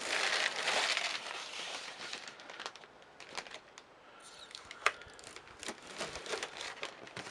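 Plastic protective film being peeled off a stainless steel barbecue grate, crinkling and tearing. The rustle is loudest in the first two seconds, then thins to scattered crackles with one sharp click about five seconds in.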